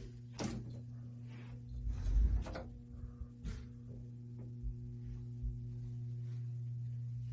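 Soft thumps and knocks of someone walking and handling a phone, the loudest about two seconds in, over a steady low hum.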